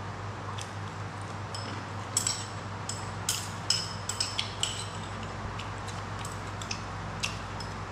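Chopsticks clicking and clinking against a ceramic bowl and plate while eating noodles: a run of short, sharp clicks through the middle, fewer towards the end, over a steady low hum.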